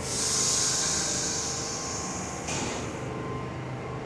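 Compressed air hissing from a stopped R62A subway car: a long hiss starts sharply, then a shorter burst comes about two and a half seconds in. Under it is the steady hum of the idling train.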